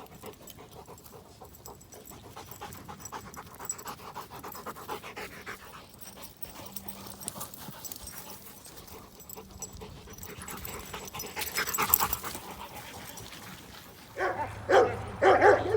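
A dog panting hard and fast close by. Near the end, dogs start barking and yipping loudly.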